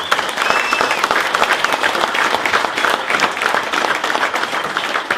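A crowd applauding: many people clapping at once, loud and steady.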